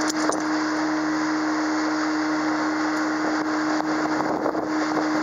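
A pontoon boat's outboard motor running steadily underway, a constant hum under wind and water rushing past the boat.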